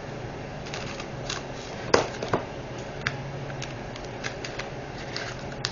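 Scattered small clicks and light rustling of diamond-painting drills and their small plastic bags and containers being handled, with two sharper clicks about two seconds in.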